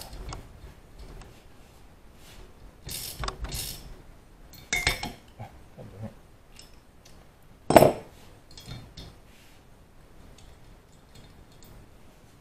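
Metal hand tools clinking and rattling while the last spark plug is fitted into an engine cylinder head: scattered clicks in short clusters, with one sharp, loudest click about eight seconds in.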